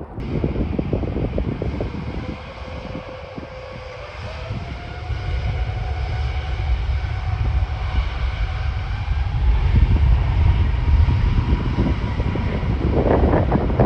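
Jet airliner engines with a whine that rises in pitch and grows louder as they spool up, over a deep rumble. Strong wind buffets the microphone throughout, heaviest near the end.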